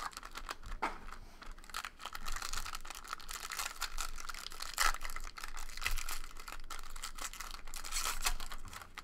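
Trading card pack being torn open and its wrapper crinkled, with the crisp clicks and rustles of cards being handled.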